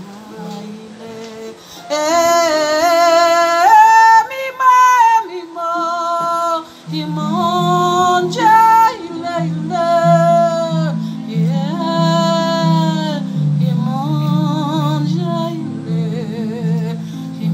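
A woman singing a slow melody of long held notes with vibrato, starting about two seconds in, over a low instrumental accompaniment that enters a few seconds later and moves in steady steps.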